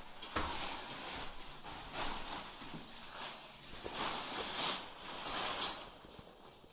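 Plastic tarpaulin rustling and crinkling in irregular swells as it is handled and hung up.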